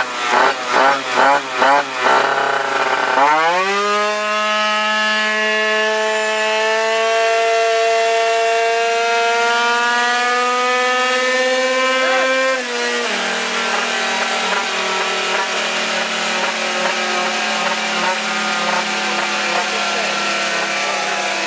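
Tuned Yamaha Aerox two-stroke scooter engine on a roller dyno. It gives a few quick throttle blips, then a full-throttle pull whose pitch climbs steadily for about nine seconds up to around 15,000 rpm. The throttle then shuts suddenly and it settles to a steady, lower tone.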